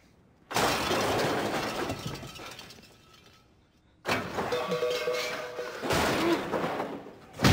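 Loud crashes and clatter of metal on an old car. One crash comes about half a second in, then a second about four seconds in with a metal clang that rings on, and a third just before six seconds. Each dies away over a second or two.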